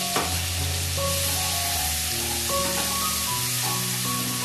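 Chopped onion and garlic sizzling steadily as they fry in hot oil in a pan, with a single light click shortly after the start. Background music plays over it.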